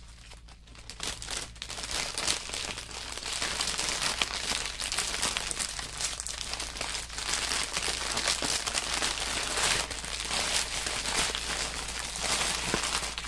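Small plastic bags of diamond-painting drills crinkling and rustling as they are handled and bundled together. A dense, crackly sound, quieter at first and fuller from about two seconds in.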